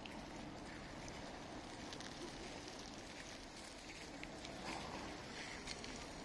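Steady outdoor ambient hiss with faint, scattered crackles and ticks.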